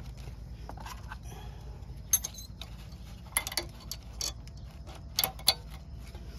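New steel brake pad abutment clips being pressed and snapped onto a disc brake caliper bracket: several sharp metallic clicks, spread irregularly over a few seconds, over a steady low hum.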